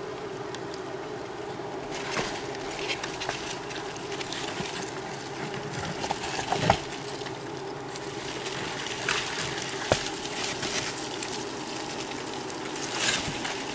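Cardboard egg-crate flats in a dubia roach bin rustling and scraping as they are handled, with scattered crinkles and sharp taps, the sharpest about halfway through. A steady rushing hum runs underneath.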